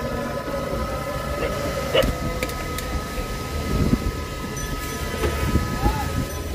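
Busy street-stall background noise: a steady low rumble with a faint high hum, broken by a few sharp clinks and knocks as steel bowls and utensils are handled on a steel counter.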